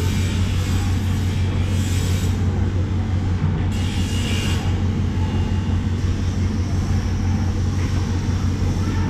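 A steady low machine hum, with a few brief hissing scrapes about two and four seconds in.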